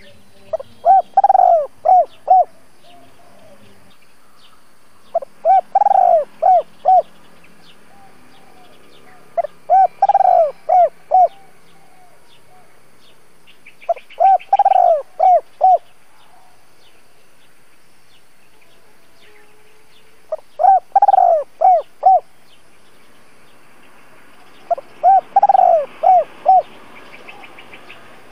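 Spotted dove cooing its calling song, the coo a decoy dove uses to draw wild doves. There are six phrases of four or five short coos each, repeated about every four to five seconds, with faint small-bird chirps in between.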